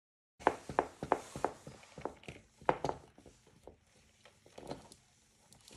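Irregular clicks and light knocks from a small battery-powered light-up toy fan being handled. There are several a second at first, then sparser after about three seconds, over a faint steady hum, and they start abruptly about half a second in.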